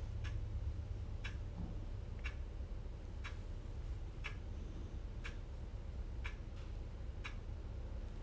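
Steady ticking, one sharp tick about every second, over a low steady hum.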